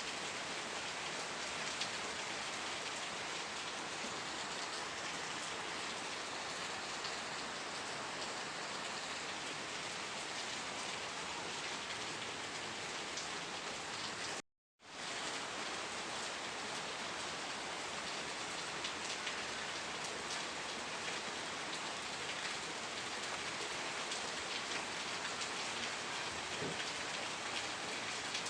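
Steady rain, a dense even hiss with individual drops pattering through it. It cuts out to silence for a fraction of a second about halfway through, then resumes as before.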